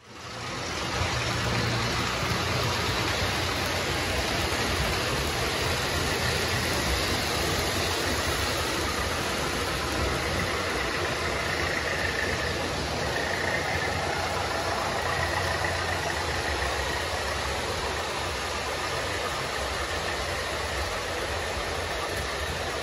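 Model railway train running on the layout: a steady motor hum and hiss, with a faint higher whine in the middle as a multiple unit runs into the platform.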